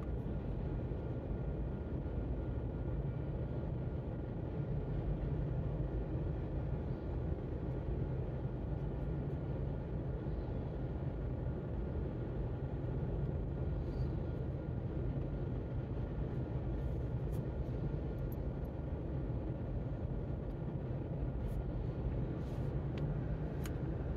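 Freight train of covered hopper cars rolling steadily past a level crossing, a continuous low rumble heard muffled from inside a stopped car. A few faint clicks come in over the last several seconds.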